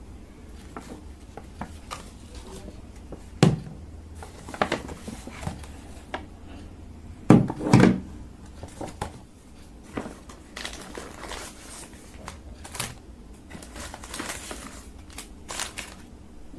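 Crinkling and rustling of things being handled, with scattered light knocks and clicks; the loudest knock comes about three and a half seconds in and a double knock about seven and a half seconds in.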